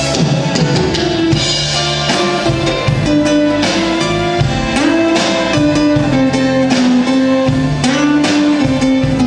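Live rock band playing an instrumental passage: a held melody line over guitar, bass and a drum kit keeping a steady beat.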